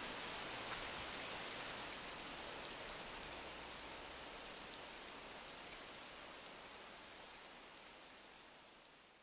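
Steady rain falling, slowly fading out and nearly gone near the end.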